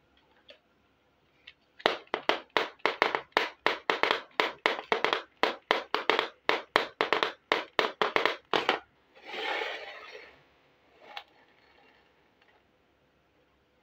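Small plastic toy stove tapped down on a board surface over and over as it is moved into place: a quick, even run of sharp plastic taps, about three or four a second for some seven seconds. Then a short scrape as it slides, and one last tap.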